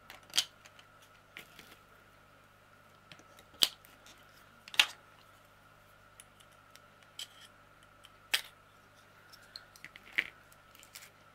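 Sharp plastic clicks, five of them spaced a second or more apart, from handling a clear multi-compartment storage box for diamond painting drills, its small lids snapping and the plastic knocking on the table.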